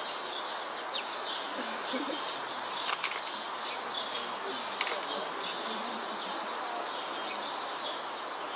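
Steady background noise, with a few sharp clicks about three seconds in and again near five seconds.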